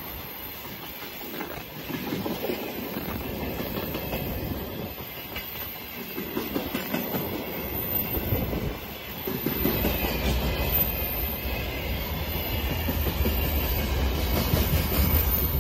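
Freight train wagons rolling past, wheels clattering over the rail joints in groups that come and go every few seconds. A deeper rumble builds in the second half as the tank cars give way to open gondola wagons.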